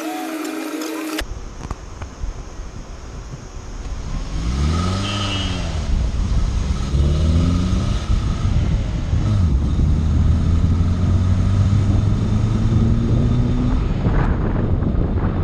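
Car driving on a road: the engine revs up and drops back a couple of times about four to five seconds in as it pulls away through the gears, then hums steadily with a slowly rising pitch as it picks up speed, over road noise.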